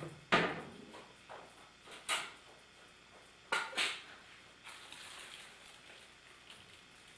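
Several sharp knocks: a loud one just after the start, another about two seconds in, and a quick pair about halfway through, each dying away briefly.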